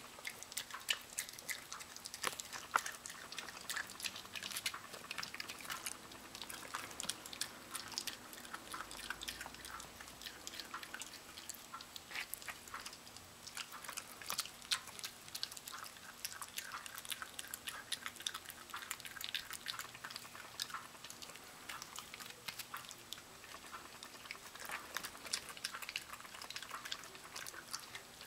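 Miniature Pinscher gnawing and chewing a piece of raw chicken, a steady run of irregular crunching clicks and smacks.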